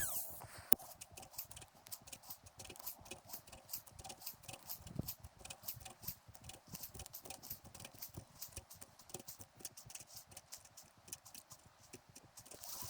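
Rapid, irregular clicking of a fishing reel being cranked during a retrieve, after one sharp click at the start.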